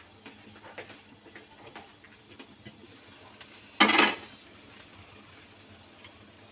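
A few faint ticks from the covered, simmering wok, then one short, loud clatter about four seconds in as the glass lid is taken off the metal wok.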